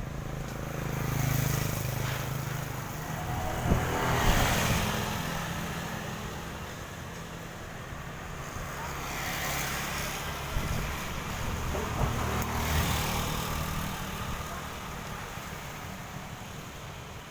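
Strong gusty wind rushing and buffeting the microphone with a low rumble, swelling and easing several times. There is a sharp click about four seconds in.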